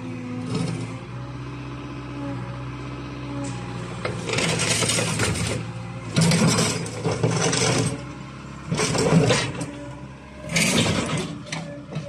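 Caterpillar 306.5 mini excavator's diesel engine running steadily, with four loud, noisy bursts of working noise over it from about four seconds in.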